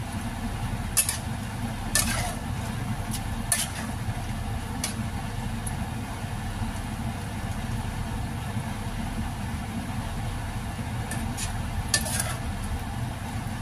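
Metal spatula stirring chicken intestines in boiling water in a wok, with a few sharp clinks and scrapes against the pan, the last near the end, over a steady low rumble.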